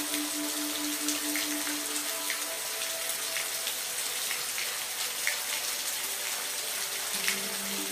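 Steady rain falling, an even hiss with separate drops landing now and then, under a few soft held notes.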